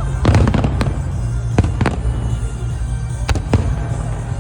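Fireworks shells bursting: a string of sharp bangs and crackles, about seven reports in just over four seconds, over a steady low rumble.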